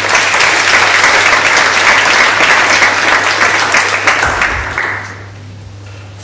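Lecture audience applauding: dense clapping that dies away about five seconds in.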